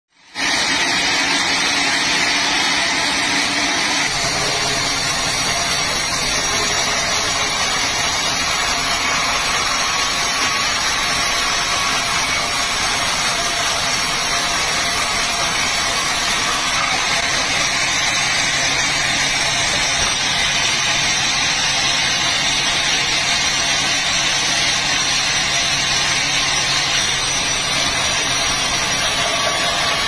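A sawmill's band saw runs steadily, its blade cutting lengthwise through a large log.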